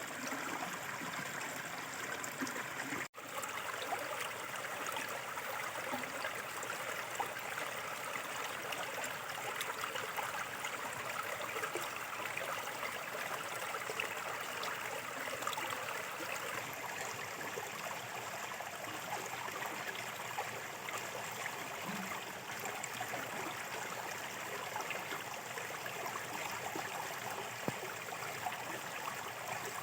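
Small river flowing steadily over stones, a continuous rushing and gurgling of shallow water, with a momentary dropout about three seconds in.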